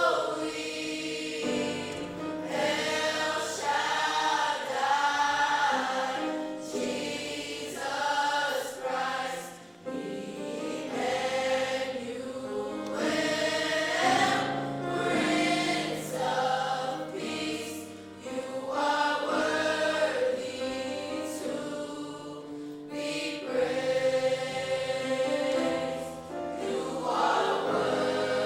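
Gospel choir singing, sung phrases rising and falling with short breaks between them.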